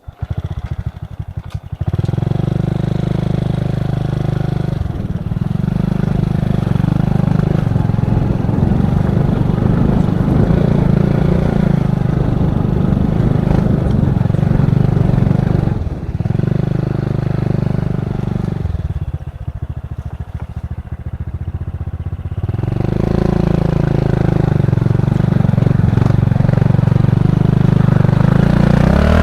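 Honda Supra X 125 single-cylinder engine of a homemade trail motorcycle running under throttle. It starts with slow, separate firing pulses, then climbs to a steady higher speed about two seconds in. It eases off briefly a couple of times, drops lower for a few seconds past the middle, then picks up again.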